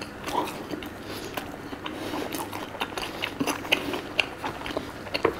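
A person chewing fried food close to the microphone: many small, irregular crunching clicks.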